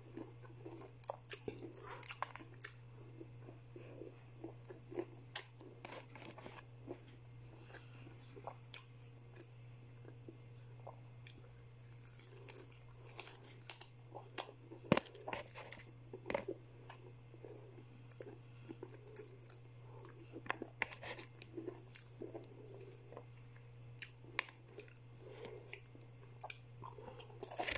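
Crispy Jollibee fried chicken being chewed and pulled apart by hand: irregular crunches and crackles of the breading, close to the microphone, over a steady low hum.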